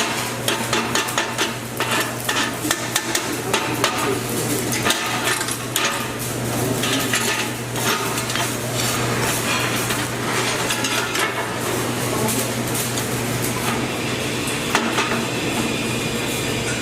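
Shielded metal arc (stick) welding of a fillet joint on 10 mm steel plate in the flat position, second pass: the arc crackles and sputters steadily throughout, over a low steady hum.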